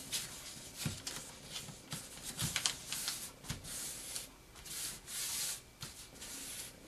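A square of paper rustling and swishing as hands slide it, line up a fold and press the crease flat, in a series of soft swishes with a few light taps on the tabletop.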